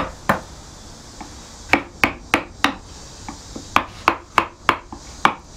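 Mallet lightly tapping a wide, shallow Swiss-made #5 carving gouge as it cuts away the background of a carved wooden panel: sharp knocks, about three a second, in runs of four to six with a short pause after the first two.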